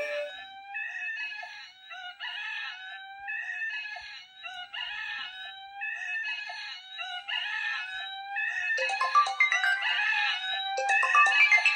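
Smartphone alarm sound of a rooster crowing, the short crow repeating about once every second and a bit. About nine seconds in, a second, louder electronic ringtone starts playing over it, as alarm and call sound together.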